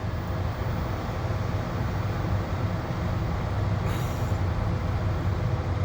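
Koldfront window air conditioner running in heat mode: a steady low hum of the fan and blower with an even rush of air.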